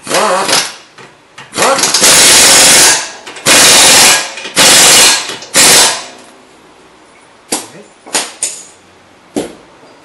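Pneumatic impact wrench hammering in one short burst, then four longer bursts, as it runs down the nuts and bolt fastening a new ball joint to the lower control arm. A few light metal clicks follow near the end.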